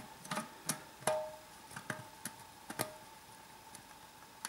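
Light metallic clicks and taps from the thin sheet-metal beer keg and its riveted door as hands press and work it to check it for play, about six spread over three seconds, two with a brief ring.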